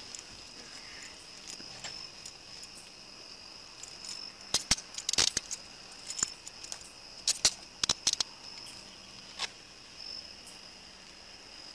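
Crickets chirping steadily, with bursts of sharp metallic clicks about halfway through and again a couple of seconds later: handcuffs being ratcheted shut on a person's wrists.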